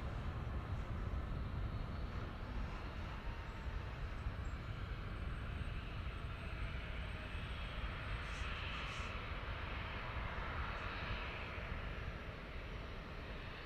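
Jet airliner engines heard as a steady rush over a low rumble, swelling in the middle and easing near the end.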